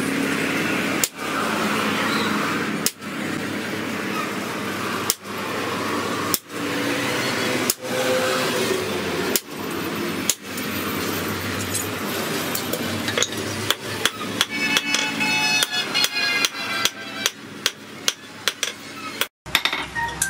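Hammer blows forging red-hot rebar on a steel post anvil. The blows come every second or two at first, then from about twelve seconds in a faster run of ringing strikes, a few a second.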